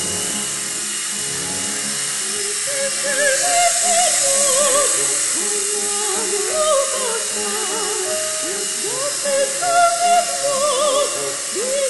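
Mini electric RC helicopter whining steadily as it hovers, its small motor and rotors giving a high, drill-like whine. Over it, a warbling melody with heavy vibrato is sung or played, louder in phrases around the middle and near the end.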